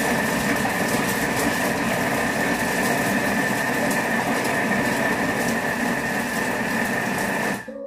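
Thermomix TM6's motor driving its blade at speed 4, chopping broccoli salad in the mixing bowl: a steady whir with a constant high whine, stopping abruptly near the end when the 7-second timer runs out.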